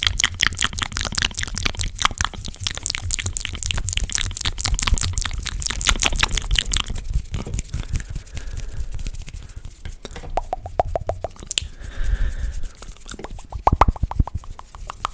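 ASMR mouth sounds made close to the microphone: wet clicks, smacks and tongue pops. They come in a fast dense run through the first half, then as sparser single pops and clicks.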